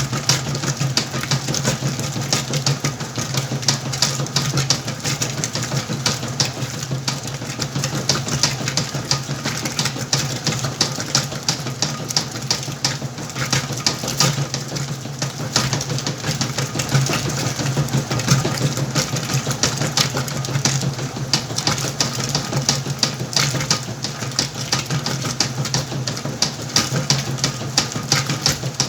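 Whirlpool washing machine running its wash cycle: a steady motor hum with a constant, fast rattle of small clicks.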